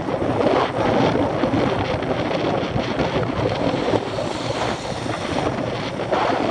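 Steady wind noise rushing over the microphone of a camera riding along on a road bike at speed.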